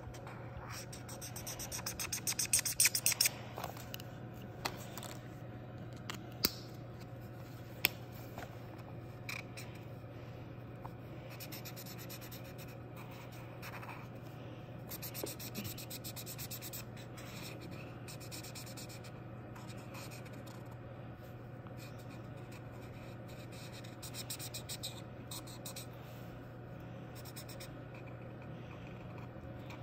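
Felt-tip art marker scratching on a colouring-book page in quick back-and-forth strokes, coming in spells, with two sharp ticks about six and eight seconds in, over a steady low hum.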